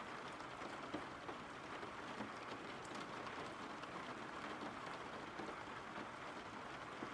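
Steady rain falling, with faint scattered ticks of single drops.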